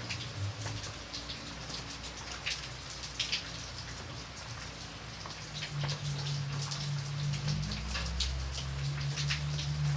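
Light rain, with many separate drops striking a surface over a steady hiss. A low hum runs underneath and grows stronger in the second half.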